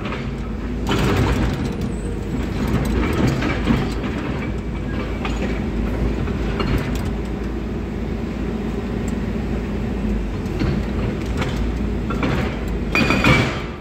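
Heavy construction machinery running steadily, with scattered metallic clanks and knocks. There is a louder, harsher stretch near the end.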